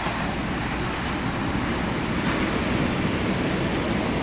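Ocean surf breaking and washing around a grounded yacht's hull, a steady rushing noise.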